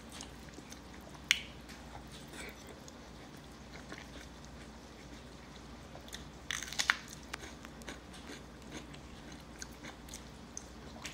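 Close mouth sounds of a person eating khichuri by hand: soft chewing and small clicks, with one sharp click a little over a second in. A louder crunchy bite, on a piece of carrot, comes about six and a half seconds in.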